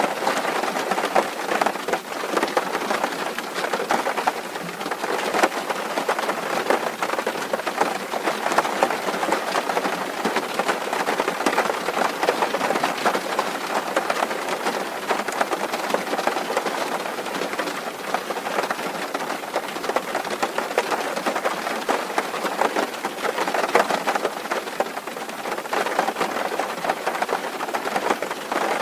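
Steady rain drumming on a tin roof: a dense, even patter of countless small drop hits on thin metal sheeting.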